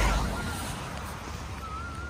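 Low rumble of wind buffeting the microphone, with a faint, evenly warbling whistle near the start and again near the end.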